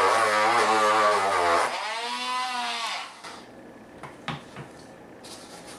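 Dremel rotary tool with a sanding drum grinding down raised plastic ribs on a hard plastic case lid, its high motor whine wavering as it bears on the plastic. About two seconds in the whine rises and then falls away, stopping about three seconds in; a couple of faint ticks follow.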